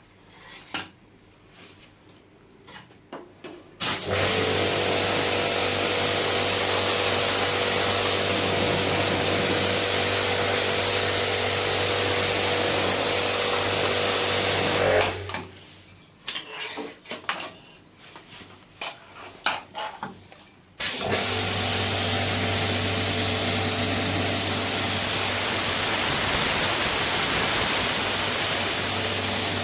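Electric pressure washer running with a steady motor hum under the hiss of its water jet, in two long runs, the second starting after a pause of about six seconds. It is spraying out a dirty air conditioner. Before and between the runs there are a few scattered knocks and clicks.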